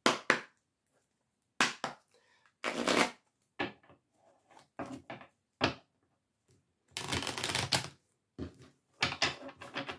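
A deck of oracle cards being shuffled by hand: irregular sharp slaps and short riffles, with a longer riffle of about a second just after seven seconds in.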